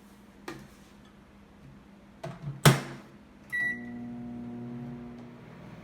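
A microwave oven door is shut with a sharp knock, a single short keypad beep sounds, and the microwave starts up, humming steadily as it begins heating.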